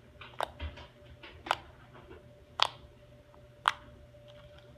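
Fingers poking pink glitter slime, making about five sharp pops and clicks at uneven intervals, the last two the loudest.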